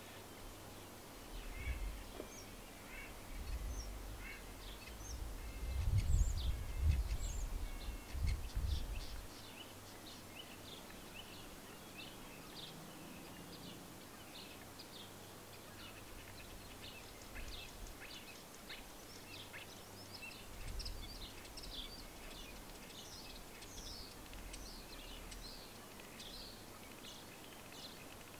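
Songbirds chirping and singing in short, high calls throughout, growing busier in the second half. A low rumble rises from about a second and a half in, peaks around six to eight seconds, dies away near nine seconds, and comes back briefly about twenty seconds in.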